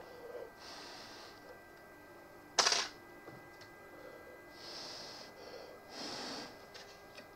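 Handling noises from reassembling an open laptop: one sharp plastic clack about two and a half seconds in, and a few soft rustling brushes of hands and the plastic bottom cover.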